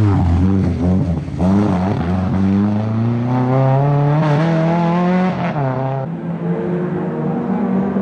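Nissan Sunny GTI rally car's engine at high revs: the pitch dips at first, climbs steadily for about four seconds as it accelerates, drops sharply about five seconds in, then runs on at steadier revs.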